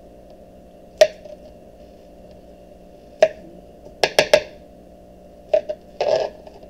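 Kitchen knife slicing through a banana and tapping down on a plastic cutting board: single chops about a second in and just past three seconds, a quick run of three about four seconds in, then a pair and a short scraping stroke near the end, over a steady low hum.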